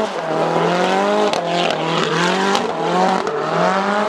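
Drift car's engine held at high revs while sliding sideways, its pitch climbing and dropping back about once a second as the throttle is worked through the drift, with the rear tyres spinning and squealing.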